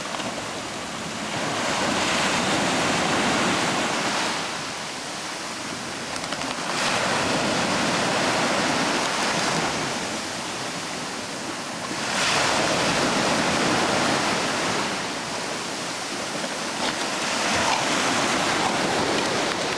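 Rough sea surf: waves breaking and washing onto the shore, the noise swelling and falling with each wave about every five seconds.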